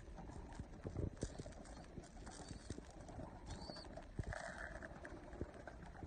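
Young racing pigeons pecking seed off concrete: quiet, irregular taps of beaks on the stone.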